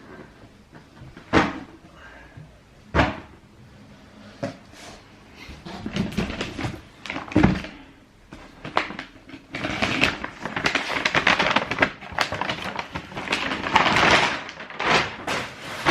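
Cardboard shoe boxes being handled: a few sharp knocks in the first half, then a long stretch of packaging rustling as the next box is opened.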